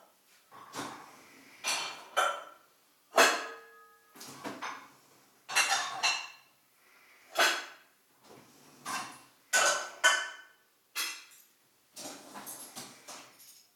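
A series of sharp clatters and knocks, roughly one a second, like dishes or utensils being handled; one about three seconds in leaves a brief ringing tone.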